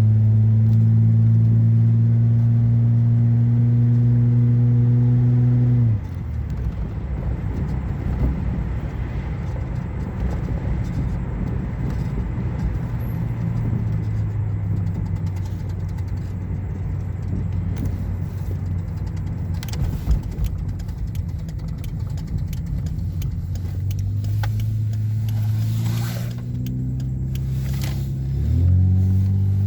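Car engine running, held at a steady raised speed for about six seconds, then dropping abruptly to a lower, rougher idle. It is revved up again near the end.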